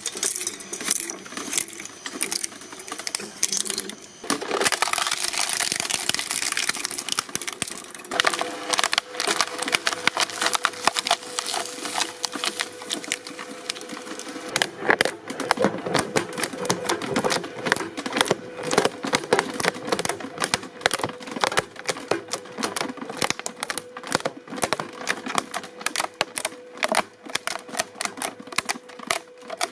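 Hydraulic press crushing an object: dense, continuous crackling and snapping clicks, many a second, with a faint steady hum coming in about a quarter of the way through.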